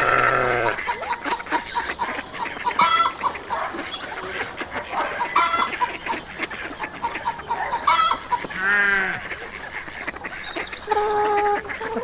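Farmyard poultry calling: a busy run of short pitched calls throughout, with a longer wavering call about nine seconds in.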